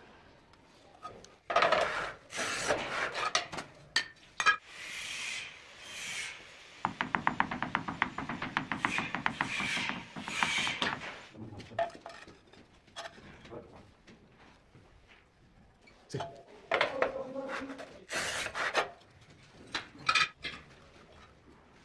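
Scraping and rubbing of tiling work on ceramic tile, in irregular bursts. About a third of the way in comes a run of fast, even rasping strokes lasting a few seconds.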